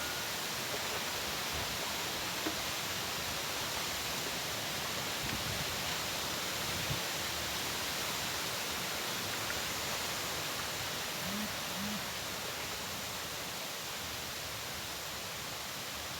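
Wind and trickling water making a steady, even rushing hiss.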